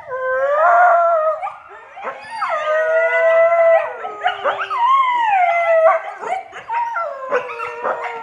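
A group of coyotes howling together, several voices overlapping, each holding a note and sliding up and down in pitch. Over the last couple of seconds it breaks into short yips and barks.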